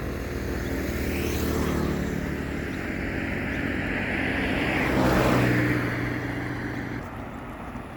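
Road traffic passing close by: engine hum and tyre noise, swelling twice and dropping away about seven seconds in.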